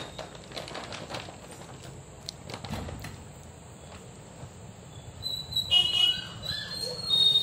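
Soft wet squishing of palmyra palm fruit pulp being squeezed by hand into a steel bowl. From about five seconds in, a run of loud, high-pitched chirps takes over.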